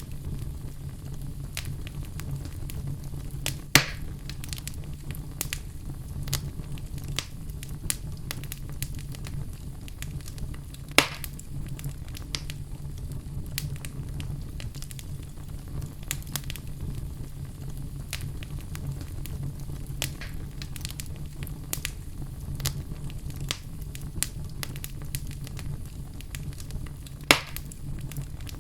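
Fire crackling with a steady low rumble under many small crackles, and three louder pops: about four seconds in, about eleven seconds in, and near the end.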